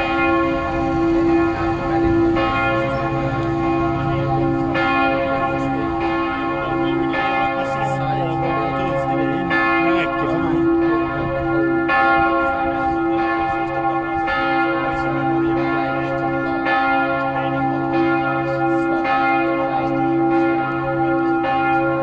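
Matthias Church's tower bells ringing, a fresh stroke about every two and a half seconds over the long, overlapping hum of the bells.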